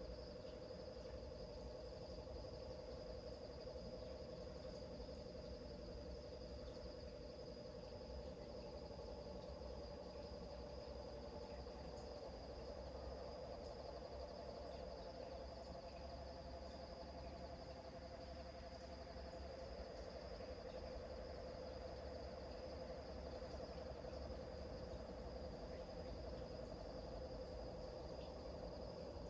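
A continuous chorus of bullfrogs calling low, under the steady high ringing of crickets.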